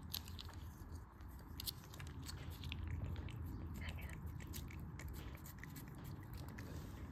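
Bengal cat licking a lickable paste treat from a squeeze tube, with rapid irregular wet licks and smacks. A low steady hum runs underneath.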